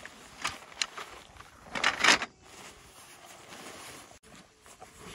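Nylon tent fabric rustling and crinkling against a plastic ground tarp as a folded tent is pulled out of its bag, in a few short bursts with the loudest about two seconds in.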